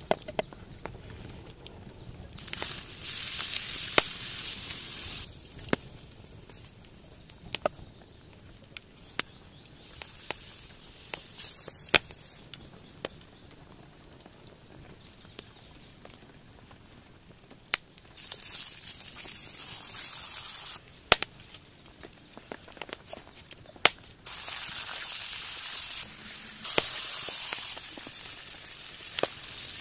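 Outdoor cooking: beef patties sizzling in a ridged grill pan in several stretches of steady hiss, with sharp knife taps and handling clicks in between.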